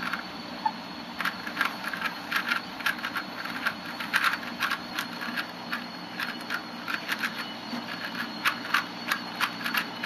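Plastic Rubik's Cube layers being turned rapidly, a quick irregular run of clicks and clacks, several a second and often in clusters.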